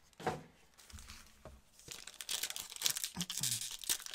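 Foil trading-card pack wrapper being torn open and crinkled by gloved hands, a dense rapid crackle starting about two seconds in.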